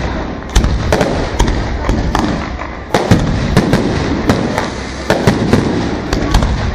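Aerial fireworks bursting in quick succession, a rapid string of sharp bangs over a continuous low rumble.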